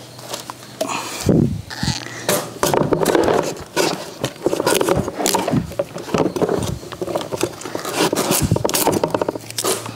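Ash gourds being handled and cut with a curved knife over a metal basin: irregular knocks and scrapes.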